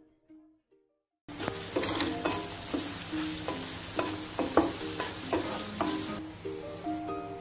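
Chicken pieces sizzling as they fry in butter and garlic in a pan. They are stirred and tossed, with sharp clacks of the spatula against the pan. The sizzle starts about a second in and drops away near the end, with background music playing under it.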